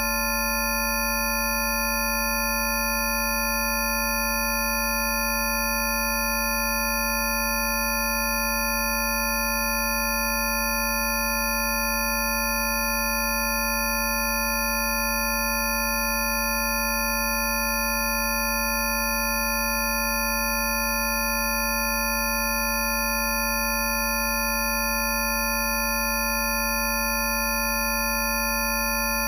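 Many steady pure sine tones at different pitches sounding together without change, from a low hum up to very high whistles: a Rife frequency tone track.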